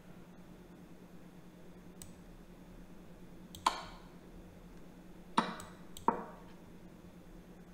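Chess.com's move and capture sound effects: three sharp wooden clacks, the second and third close together, as three moves of a rook trade are played. A low steady hum sits underneath.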